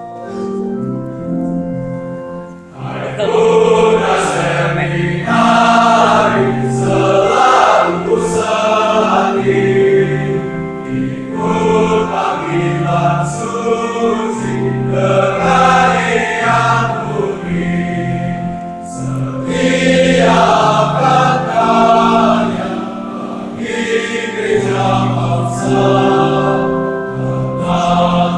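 A choir of young seminarians singing in parts, many voices together. The first few seconds hold a quieter sustained chord; then, after a brief dip, the singing turns louder and moves in a steady rhythm of syllables.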